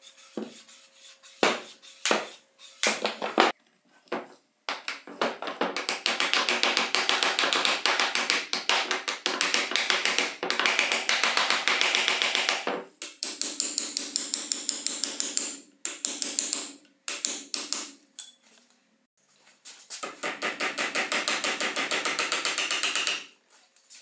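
Soft-faced mallet tapping a chisel mortiser's metal vise jaw onto its steel guide rods. A few single blows come first, then long runs of rapid light taps, about five a second, broken by short pauses.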